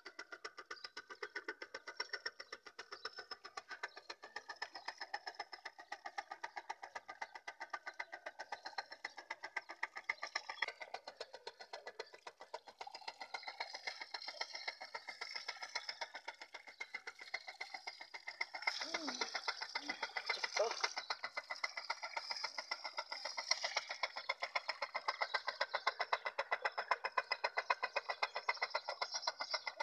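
12-volt DC motor on a water pump, powered from a car battery, running with a fast, even pulsing hum; it gets louder about 18 seconds in.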